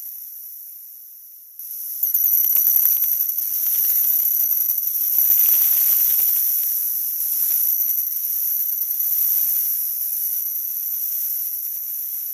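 A 'wah wah' sound effect sped up so far that it is no longer heard as a tune but as a high, hissing screech. It jumps suddenly louder about a second and a half in.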